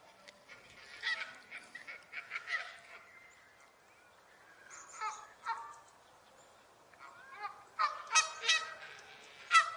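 Canada geese honking in scattered bursts of short calls, with the loudest run of honks near the end.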